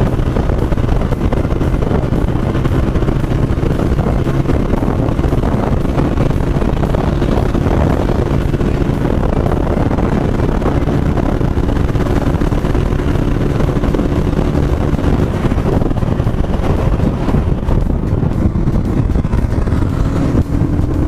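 Wind buffeting the microphone over a small motorcycle's engine running steadily at cruising speed, with a faint steady engine note held through most of it.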